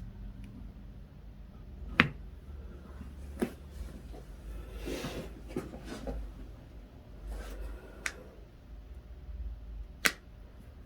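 Joints cracking during a chiropractic adjustment: a few sharp pops, the loudest about two seconds in and another near the end, with smaller ones between and a soft rustle about halfway through.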